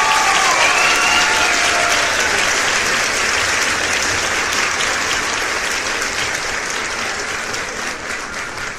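Audience applauding, a dense clapping that slowly tapers off toward the end.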